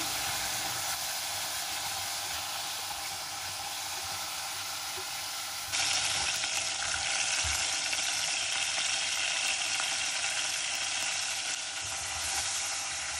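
Chicken wings sizzling as they fry in hot oil in a saucepan: a steady hiss that gets louder and brighter about six seconds in.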